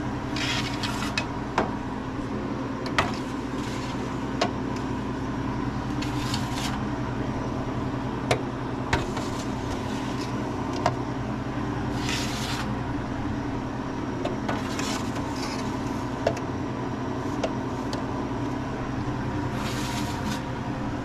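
Metal freeze-dryer trays scraping and clicking as they slide onto the shelf rack of a Harvest Right freeze dryer, several separate scrapes and sharp clicks over a steady low hum.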